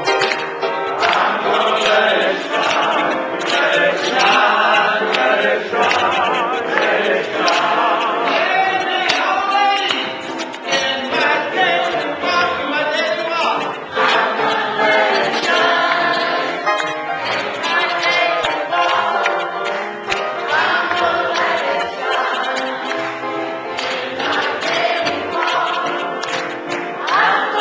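A church congregation singing a gospel song together with piano accompaniment, some people clapping along.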